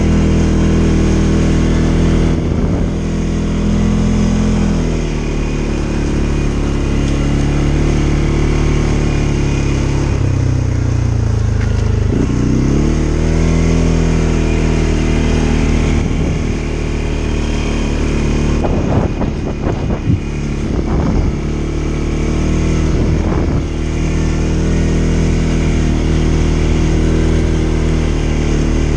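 CFMoto ATV engine running as the quad is ridden along a rough dirt trail, its pitch falling and rising as the throttle is eased off and opened again. Several short knocks and rattles come from the quad over rough ground about two-thirds of the way through.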